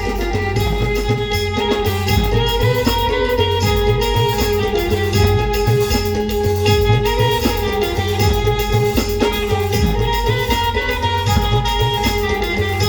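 Live band playing an Agri-Koli folk wedding song: a sustained, gliding melody over a steady drum and percussion beat.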